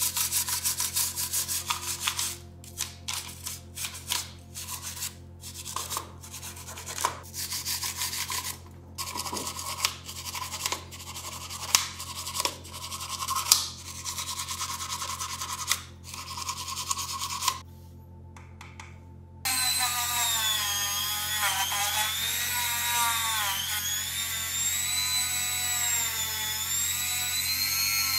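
A small brush scrubbing the corroded control potentiometers and circuit board of a vintage radio in quick strokes. After a short pause about two-thirds of the way through, a small rotary tool runs with a whine that wavers up and down as it works.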